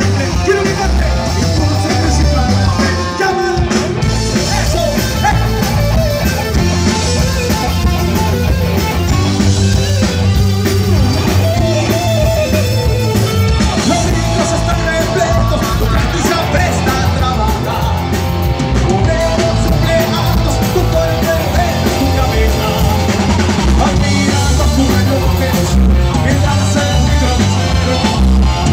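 Live rock band playing through a stage PA: drum kit, electric guitars and keyboard, with a singer on microphone.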